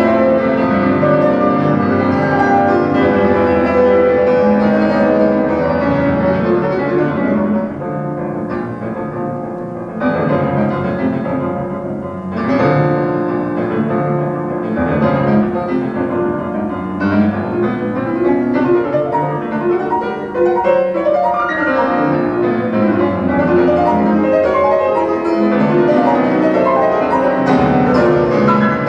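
Classical piano music played back from a United Home Audio reel-to-reel tape deck through MBL loudspeakers, heard in the listening room, with a softer passage about eight to twelve seconds in.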